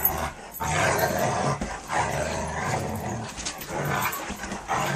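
Dogs play-fighting: a string of rough growls, each about half a second to a second long, following one another with short breaks.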